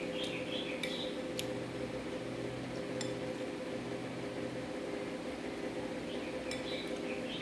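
A metal spoon clinks and scrapes against a ceramic bowl as it stirs and scoops a milky dessert, giving a few sharp, separate clinks, two of them close together near the end, over a steady low hum.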